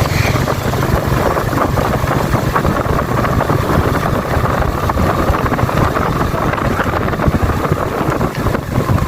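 Yamaha Vega New motorcycle's 110 cc four-stroke single-cylinder engine running under way at a fairly steady pitch, with wind noise on the microphone.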